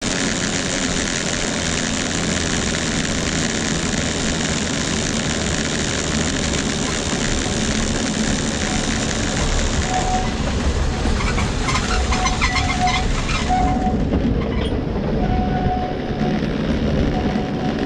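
Steel haulage cables of the Great Orme Tramway running over the track pulleys of the cable-hauled tramway, a steady noise. From about ten seconds in, an approaching tram adds repeated short squeals and rattling as it comes alongside.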